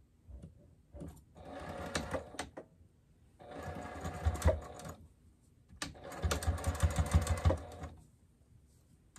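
Juki electric sewing machine stitching a seam through shirt fabric in three short runs, the last the longest, with brief stops between.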